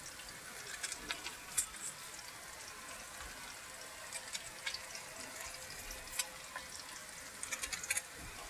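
Sliced yellow squash frying in oil in a skillet: a faint steady sizzle with scattered small ticks and crackles, a little cluster of them near the end.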